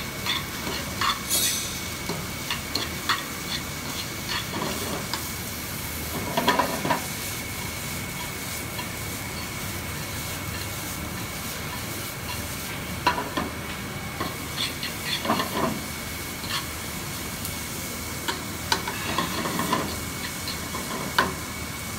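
Sliced carrots, onions and chocho sizzling in oil in a frying pan on a gas burner, stirred and tossed with a metal fork that scrapes and clinks against the pan now and then.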